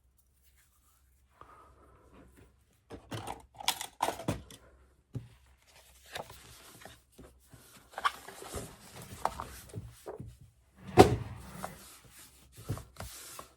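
Paper and craft tools handled on a tabletop: rustling of paper with scattered clicks and knocks, the loudest knock about eleven seconds in.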